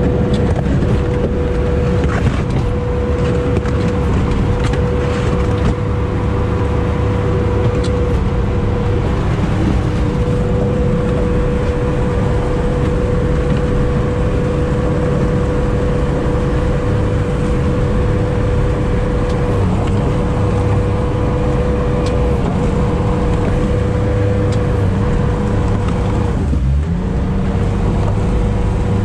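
Sherp amphibious ATV's engine running steadily under load, heard from inside the cab, with a constant high whine over its low rumble as it pushes through floating river ice. A few sharp knocks sound between about two and five seconds in, and near the end the engine note briefly dips, then comes back slightly higher.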